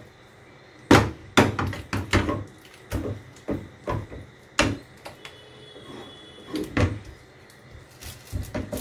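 Plastic spatula knocking and scraping against a non-stick frying pan while stirring thick cheese sauce: a run of irregular clacks, loudest about a second in.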